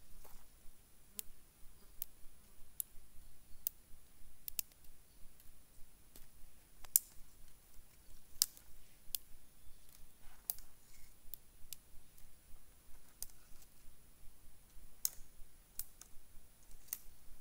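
Small dry twigs snapped by hand one at a time while gathering kindling for a fire: sharp, irregular cracks about once a second, a few of them louder.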